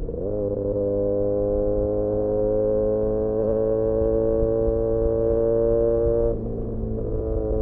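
Benelli 302S's 300 cc parallel-twin engine running through an Austin Racing aftermarket exhaust under way, a steady drone whose pitch creeps up as it pulls in gear, then drops in level and pitch about six seconds in as the throttle eases or a gear changes.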